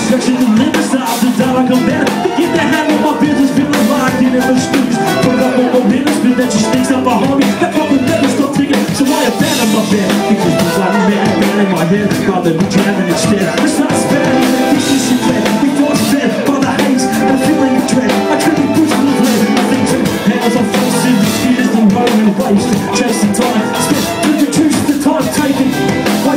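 Live hip hop band playing loudly: an MC's vocal on the microphone over electric guitar and a drum kit.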